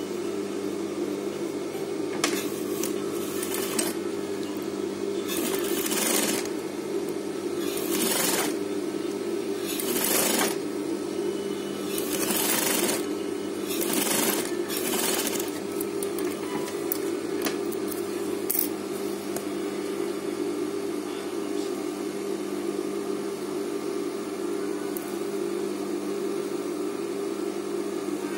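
Industrial lockstitch sewing machine: its motor hums steadily, with several short bursts of stitching, each about a second long, in the first half as a zipper is sewn into fabric.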